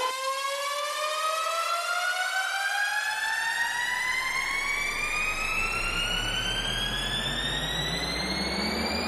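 Speaker-test frequency sweep: electronic tones gliding slowly and steadily upward in pitch over a hiss. About three seconds in, a deep bass tone joins underneath and rises slowly too.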